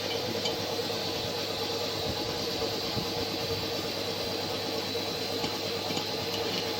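A machine running steadily with an even, constant hum.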